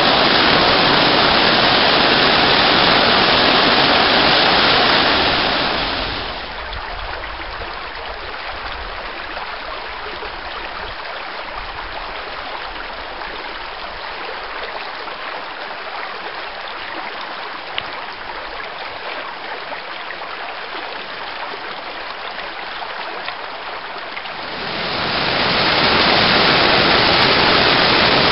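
Waterfall pouring down a rock chute into its pool, a loud, even rush of water. About six seconds in it gives way to the quieter, lighter rush of a shallow creek running over rocks, and about twenty-five seconds in the loud waterfall rush returns.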